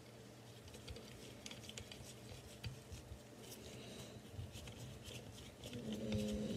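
Faint scattered clicks and light scraping of a small screwdriver turning a screw in the front sight of a Henry lever-action .22 rifle, with metal parts being handled. A faint steady hum sets in near the end.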